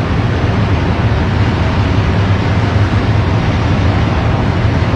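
Steady, loud machinery drone with a deep hum in the cargo tunnel of a self-unloading lake freighter, where the conveyor belt system runs.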